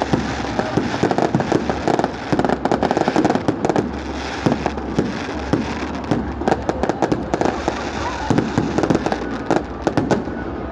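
Fireworks going off in a dense, continuous barrage of rapid crackling pops, with no single standout boom.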